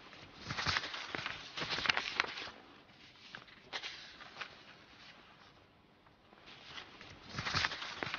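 Sheets of paper rustling and crackling on a news desk in short bursts, with quiet gaps between: the anchor shuffling through his papers looking for the right item.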